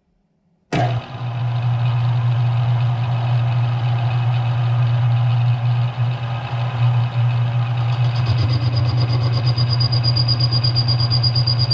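Smithy CB-1220XL combination lathe-mill switched on just under a second in: its motor and spindle drive start abruptly, then run at a steady speed with a strong low hum. A thin, high, steady whine joins about two-thirds of the way through.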